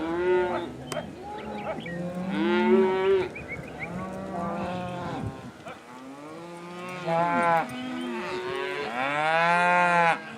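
A herd of beef cows mooing and bawling, many calls overlapping one another, the loudest ones near the end. The cattle are unsettled at the end of a drive.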